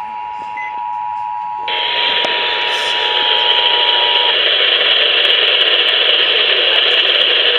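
Emergency Alert System two-tone attention signal: two steady tones sounding together, ending about four seconds in. From about two seconds in, loud radio static hiss comes up under the tones and keeps going after they stop.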